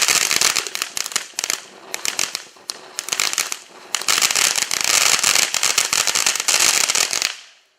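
Winda 'Neon Jelly Beans' firework going off as a dense, rapid crackle of many small pops. It comes in two heavy waves, the second longer, then stops about seven seconds in.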